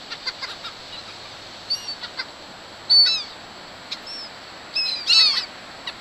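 A flock of gulls calling: scattered short calls, loudest about three seconds in and again around five seconds in, over a steady background hiss.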